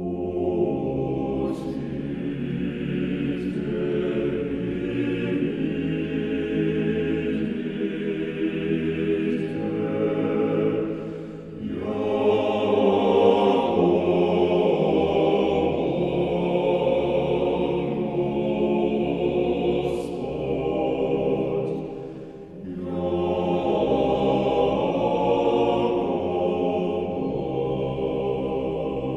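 Russian Orthodox choral chant, a choir singing in long sustained phrases, with short breaks between phrases about eleven seconds in and again a little past twenty-two seconds.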